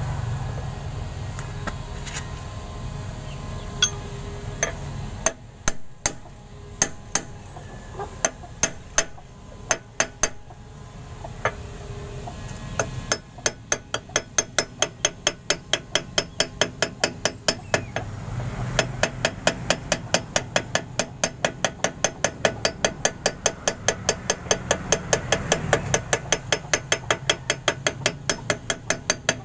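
Claw hammer striking a steel drift held against a new ball bearing, driving it into the front hub of a Bajaj RE three-wheeler: a few spaced metallic taps, then, about halfway through, steady rapid tapping at about three blows a second.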